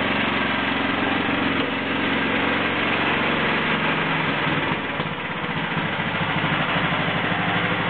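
A Honda 11 horsepower engine, newly swapped into a riding mower, runs steadily soon after being started. About five seconds in its note changes to a choppier, pulsing run.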